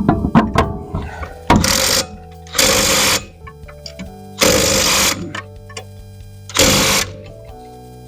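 Impact wrench run in four short bursts of about half a second each, spaced a second or two apart, driving the wheel's lug nuts. There are sharp clicks in the first second, and background music plays throughout.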